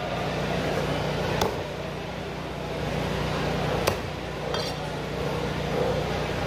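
A few sharp metallic clicks, the loudest two about two and a half seconds apart, from a knife working along a large red snapper on a wooden cutting block, over steady background noise.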